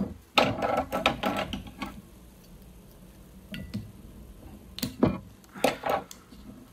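Sharp clicks and scraping as the cap and seal of an unopened olive oil bottle are twisted at by hand and cut at with scissors. The clicks bunch up about a second in and again around five to six seconds in, with a quieter stretch between.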